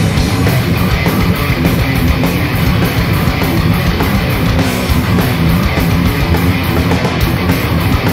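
Live heavy metal band playing an instrumental passage: distorted electric guitars and bass over drums keeping a steady, fast beat.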